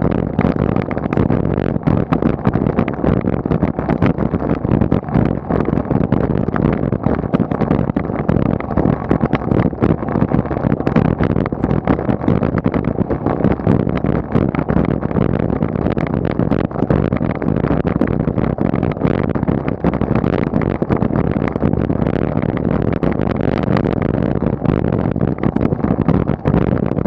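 Steady road and wind noise picked up by a camera mounted on a bicycle as it climbs, with constant fine rattles from the road surface coming through the mount.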